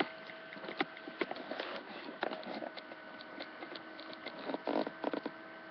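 Scattered light taps and clicks of a phone being handled and tapped, with a short rustle about three-quarters of the way through, over a steady electrical hum.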